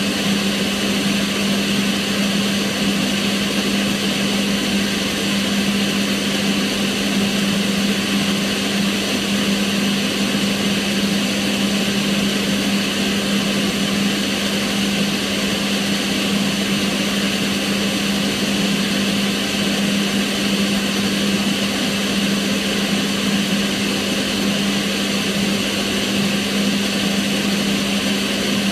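Kitchen range hood extractor fan running steadily: an even rush of air with a strong, constant low hum.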